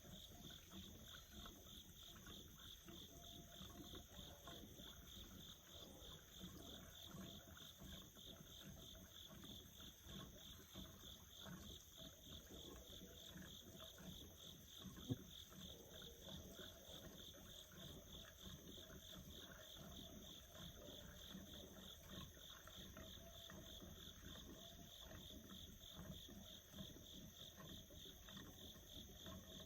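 Faint pre-dawn night chorus: a steady, rapidly pulsing high trill with a second, higher steady whine above it. A single small click about 15 seconds in.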